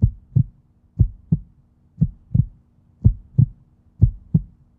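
Heartbeat sound effect: deep double thumps, lub-dub, about once a second, in an even rhythm.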